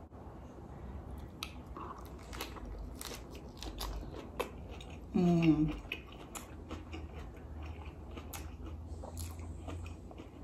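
Close-mic eating: biting and chewing a crispy beer-battered bánh xèo wrapped in lettuce, with many small crunches. About halfway through, a short hummed 'mmm' from the eater with her mouth full.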